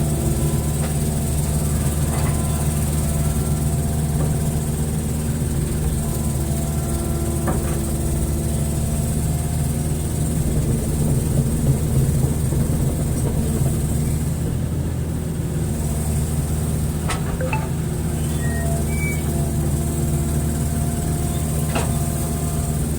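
Hitachi hydraulic excavator's diesel engine running steadily, with a few short knocks in the second half.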